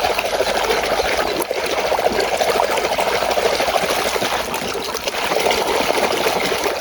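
Water running steadily and splashing over a muddy toy bus as it is rinsed clean.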